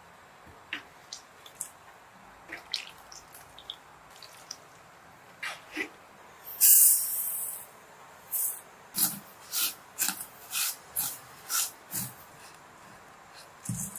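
Silicone spatula stirring sugar and loose black tea leaves as they are dry-roasted in a pan, scraping and rustling in regular strokes about twice a second. Before that come faint soft clicks and taps, and a brief loud hiss just under seven seconds in.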